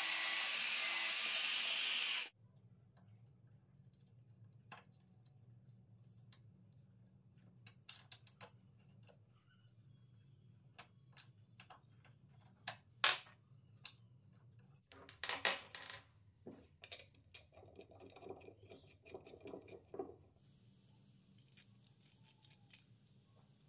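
A drill press with a step drill bit boring into laminated plywood, cutting off about two seconds in. After it a faint low hum, with scattered small metallic clicks, taps and a brief scrape as a hex key and bolts are handled and fitted into the wood.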